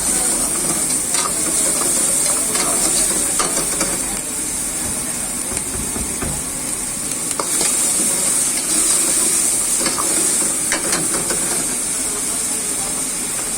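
Veg manchurian frying in a wok: a steady hiss and sizzle, with scattered clinks and scrapes of a ladle against the pan.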